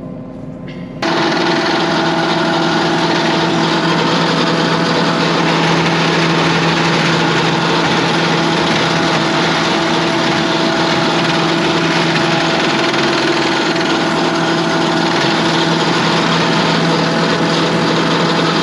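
Forage harvester's knife drum spinning at speed off the tractor, with the built-in sharpener's grindstone being run across the knives to sharpen them: a loud, steady rushing whir over a low hum, starting suddenly about a second in.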